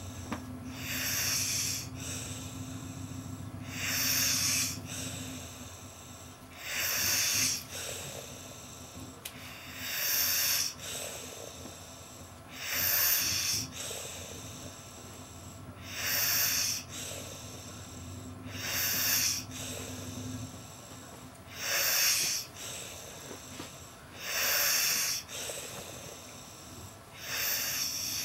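A man snoring in deep sleep on a couch: a loud, noisy breath roughly every three seconds, about ten in all.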